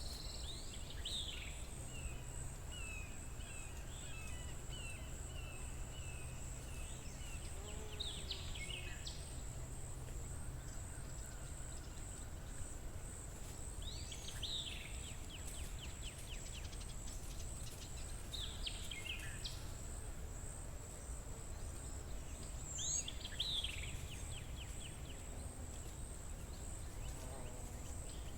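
A songbird repeats a short song about every five seconds, each a quick falling phrase ending in a rapid trill. Under it runs a steady, high, pulsing insect trill and a low background rumble.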